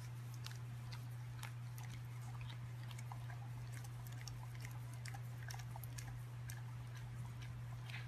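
Close chewing and crunching: a stream of irregular small clicks and smacks, over a steady low hum.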